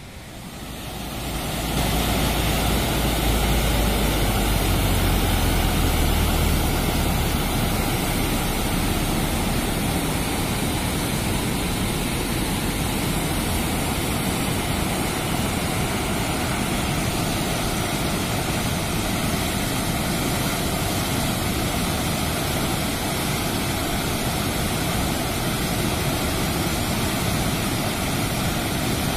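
Rushing white water pouring through the gates of a river weir, a steady rush that fades in over the first couple of seconds. A heavier low rumble sits under it for the first several seconds.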